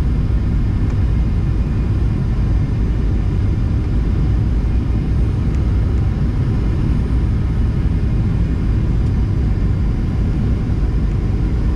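Steady in-cabin noise of a Boeing 737-800 descending on approach, heard from a window seat over the wing. The CFM56-7B turbofans and the airflow make an even, deep noise that stays unchanged throughout.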